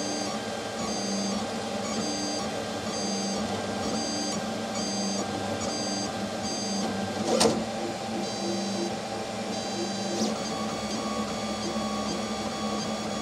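FDM 3D printer printing: its stepper motors give short high whines that switch on and off in a repeating pattern, about twice a second, as the print head moves back and forth, over a steady machine hum. A single sharp click comes about seven seconds in.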